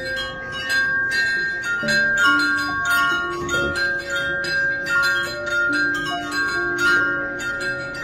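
Metal-tube wind chime jangling, its tubes struck again and again at an uneven pace so that several clear bell-like notes ring on and overlap.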